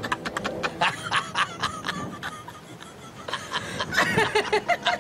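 A man and a woman laughing together in quick repeated bursts. The laughter eases off around the middle and breaks out again about a second before the end.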